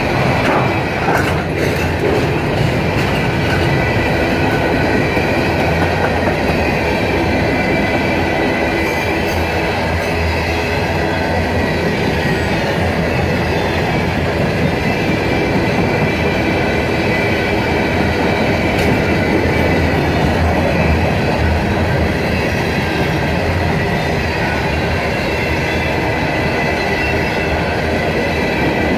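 Empty flatcars of a long freight train rolling past: a steady rumble and rattle of steel wheels on rail. Thin, steady, high-pitched wheel squeal runs over it.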